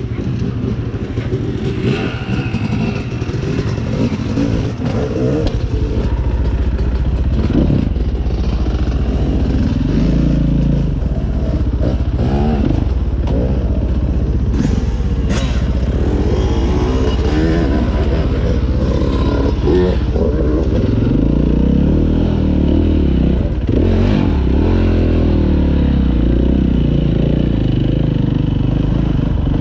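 Dirt bike engine running under way, its revs rising and falling with the throttle over the trail, with knocks and rattles from the bike over rough ground.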